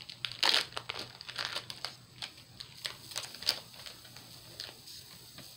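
Foil wrapper of a Pokémon trading-card booster pack crinkling and being torn open, a rapid crackle of short crinkles strongest about half a second in, thinning out after about three and a half seconds as the cards are handled.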